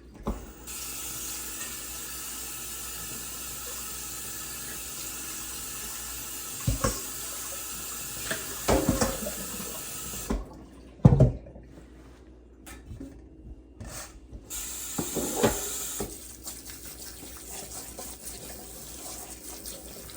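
Kitchen sink tap running steadily into the sink, shut off about ten seconds in, then run again briefly a few seconds later. A few sharp knocks of things handled in the sink come in between, the loudest just after the tap goes off.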